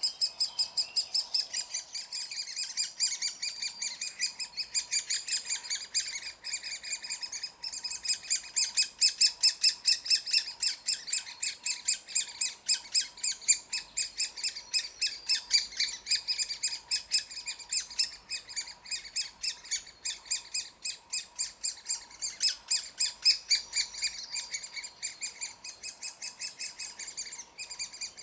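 Birds calling in a fast, steady series of short high chirps, about five a second.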